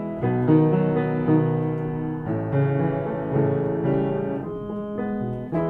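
Piano playing the introduction to a slow song: sustained chords with new notes struck every half second or so.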